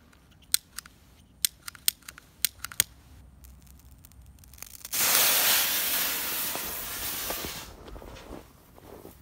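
A run of sharp clicks from a lighter being sparked, then, about five seconds in, a homemade potassium nitrate, sulfur and flake-aluminium white flare catches with a sudden loud hiss. The hiss eases off after about three seconds into a quieter burn.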